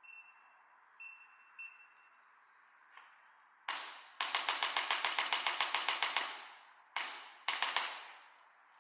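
Electric chiropractic adjusting activator: three short high beeps, then sharp mechanical clicks as its head fires. One single strike comes first, then a rapid run at about eleven strikes a second for nearly two seconds, another single strike, and a short quick burst near the end.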